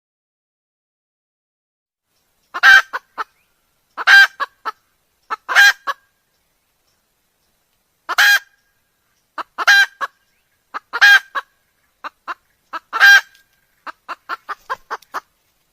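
Wild red junglefowl calling: a series of loud, short, high-pitched calls, one every second or two, each trailed by a couple of quieter clipped notes. Near the end comes a quick run of short notes.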